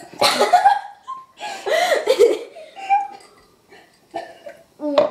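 A person coughing in several separate fits after swallowing a spoonful of dry ground cinnamon, the powder catching in the throat and nose.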